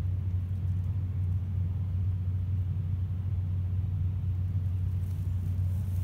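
A steady low rumble, unchanging throughout.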